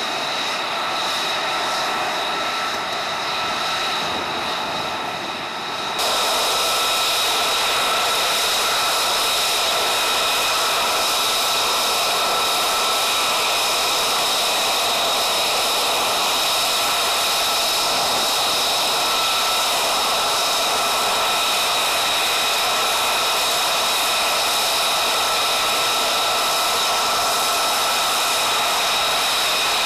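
F-35A's Pratt & Whitney F135 turbofan running at idle: a steady rushing roar with a high, even turbine whine. It gets suddenly louder and brighter about six seconds in.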